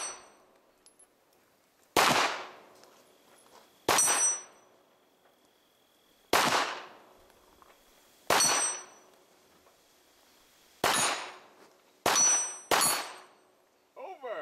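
Handgun shots fired one at a time, seven in all at a slow, deliberate pace, about every one to two and a half seconds. Most of the shots are followed by the high ringing clang of a steel plate target being hit.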